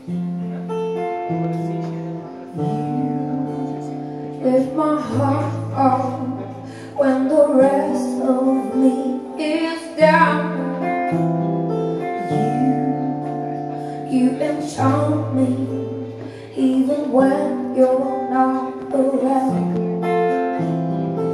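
Song intro with guitar playing chords over held bass notes, no words sung.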